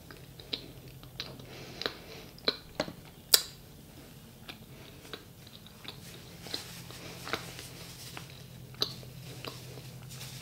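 Close-miked chewing of a mouthful of seeded whole-grain bread with cream cheese and avocado: irregular sharp mouth clicks about every half second, the loudest about three seconds in.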